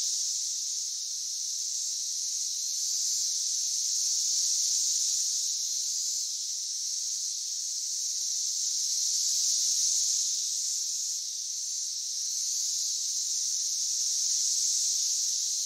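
A steady, high-pitched insect chorus that swells and eases gently every few seconds.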